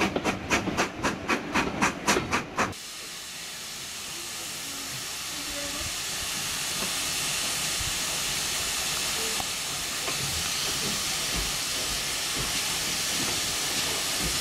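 A steam train running with a regular beat about four times a second, which cuts off about three seconds in. After that comes a steady hiss of escaping steam from a steam tank locomotive easing slowly along a station platform.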